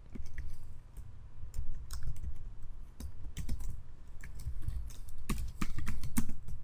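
Typing on a computer keyboard: irregular keystrokes, coming faster and louder in a flurry about five seconds in.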